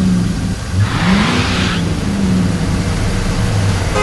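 Animated-cartoon engine sound effect of a vehicle revving, its low pitch gliding up about a second in and dropping back later, with a brief rushing hiss around the rise.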